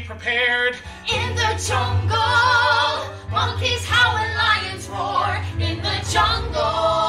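Several voices singing a musical-theatre song with vibrato, over a low sustained instrumental bass that drops out briefly about a second in.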